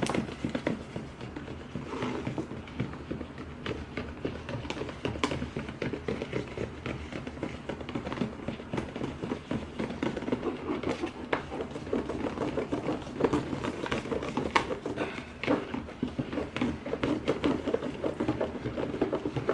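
Thick white glue slime mixture being stirred steadily in a bowl: a continuous wet, sticky churning with many light clicks and taps throughout.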